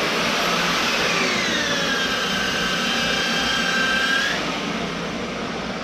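A 7-inch grinder with a 150-grit sanding disc running against a kart tire, scuffing the rubber during tire prep. Its high whine drops in pitch about a second in, then stops after about four seconds, leaving a quieter rushing noise.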